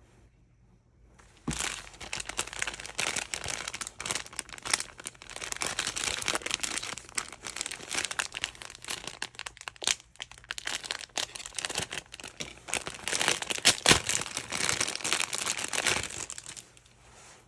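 Packaging crinkling and rustling as it is handled and opened. The dense crackle starts suddenly about a second and a half in, with a few sharper crackles along the way.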